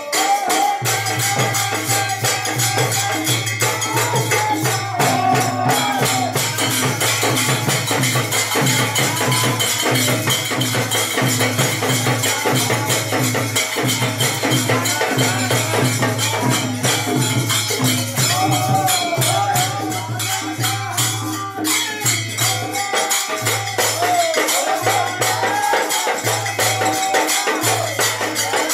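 Indian folk percussion jam: a dholak barrel drum and tabla keep a steady beat under constantly clashing brass hand cymbals (manjira) and a shaken rattle, with men's voices singing along at times.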